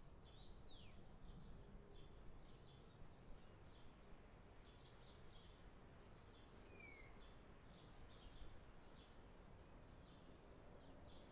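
Faint outdoor ambience: small birds chirping again and again, short high calls about every half second with an occasional falling note, over a quiet low background noise.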